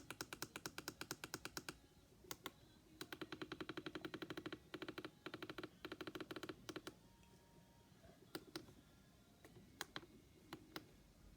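Runs of quick clicking beeps, about ten a second, in several bursts, then a few single clicks: buttons on a weather radio being held and pressed to step through the hour and minute while setting its alarm.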